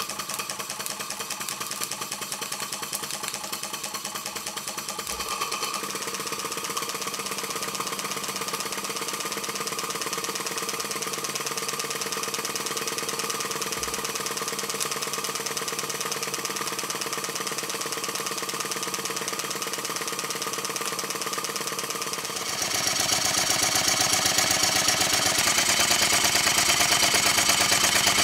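Markie Scenic live-steam model traction engine running in steam, with a fast, steady mechanical beat. About 22 seconds in, the sound switches to a small vertical stationary steam engine running, louder and brighter.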